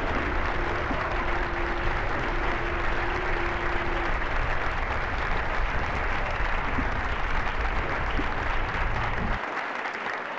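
A large pack of racing road bicycles passing close by: a continuous dense hiss and whirr of many tyres and freewheels, with low rumble that drops away near the end. A single steady tone is held through about the first four seconds.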